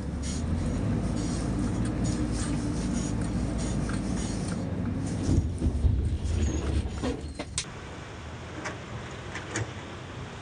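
Heavy dump truck's diesel engine running, a low rumble heard from inside the cab, with knocks and rattles a little past the middle; the rumble drops away about two-thirds of the way through, leaving a lower hum and a few sharp clicks.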